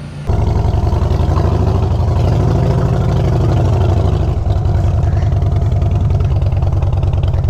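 Harley-Davidson motorcycle's V-twin engine running with a steady, pulsing beat as the bike pulls away at low speed. It comes in suddenly just after the start, and its note changes slightly about four seconds in.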